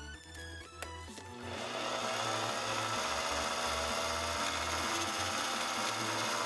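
Mini metal lathe turning an aluminum workpiece: a steady hiss of the tool cutting comes in about a second and a half in and holds level, with background music under it.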